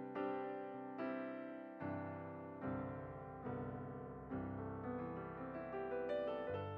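Soft background piano music, notes or chords struck roughly every second and fading between strikes.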